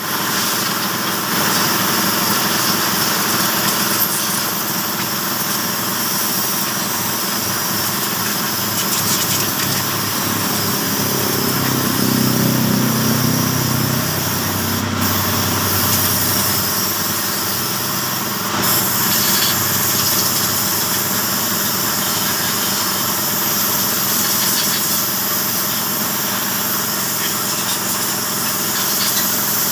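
A small engine running steadily, with a heavier low rumble for a few seconds about halfway through.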